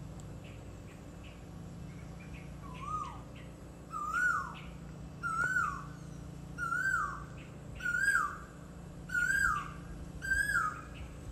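An animal calling over and over, starting about three seconds in: a short note that rises and then falls, repeated seven times about every second and a bit. Faint high chirps and a low steady hum sit behind it.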